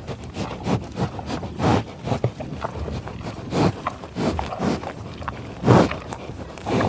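American bison close by: short grunts and sniffing breaths at irregular intervals, with rustling and steps in tall grass; the loudest grunt comes about three-quarters of the way through.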